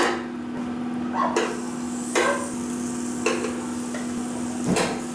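Metal seekh skewers knocking and clinking against the metal rim of a charcoal grill as they are laid across it one after another, five sharp knocks about a second apart.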